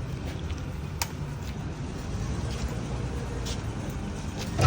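Excavator diesel engine idling steadily, a low rumble, with a sharp click about a second in.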